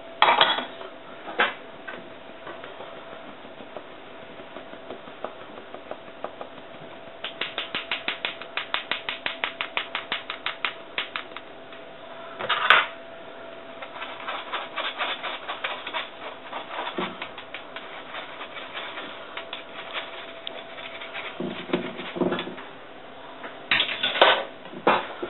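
Stainless steel mesh sieve tapped and shaken over a metal mixing bowl to sift flour and cocoa: runs of quick light taps, about five a second, with a few louder metal-on-metal knocks.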